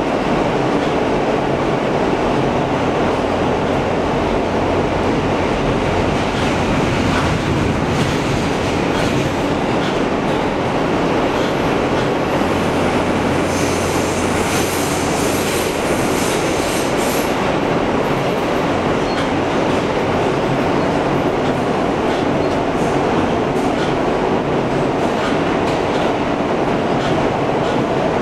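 Interior noise of an R160 subway car running through a tunnel: a steady loud rumble of wheels on track with a few clicks over rail joints. About halfway through, a high wheel squeal sounds for several seconds.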